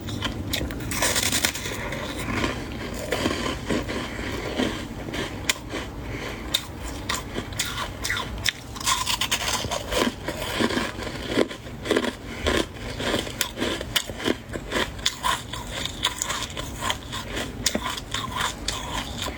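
Soft white freezer frost crunching as it is bitten and chewed close to the microphone: a quick, irregular run of crackly crunches.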